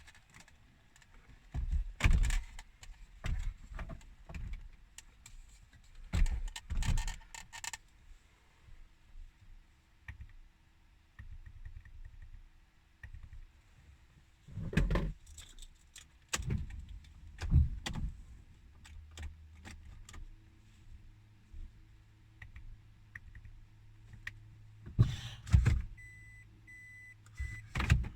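Plastic dashboard trim, wiring connectors and small parts being handled inside a car: irregular clicks, knocks and rattles with quiet gaps in between. A short series of electronic beeps comes near the end.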